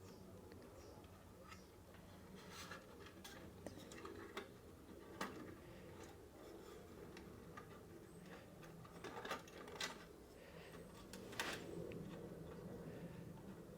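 Faint, scattered clicks and light metallic taps from small metal model parts being handled, over a low steady hum.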